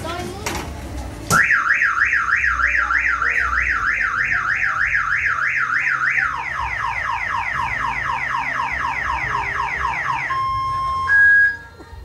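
Car alarm siren going off: it starts abruptly about a second in with a fast rising-and-falling warble, several cycles a second. About halfway it switches to a different sweeping pattern, then gives a couple of steady tones and a short loud beep near the end before stopping.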